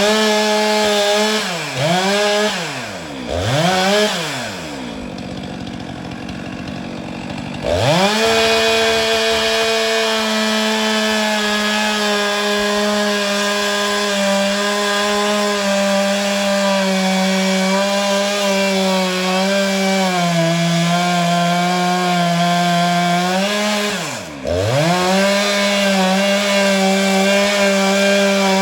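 Two-stroke chainsaw blipped up three times, dropped to idle for a few seconds, then held at full throttle cutting pine, its pitch sagging slightly under load and dipping once briefly near the end.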